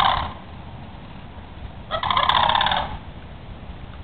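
Sandhill cranes calling with loud, rolling, rattling calls: the tail of one call at the very start, then a full call of about a second near the middle.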